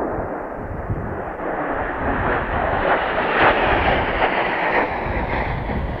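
Jet noise from a Mitsubishi F-2 fighter's single F110 turbofan as it comes round on its landing approach with the gear down. The noise swells to its loudest about three and a half seconds in, then eases a little, with gusty wind rumbling on the microphone underneath.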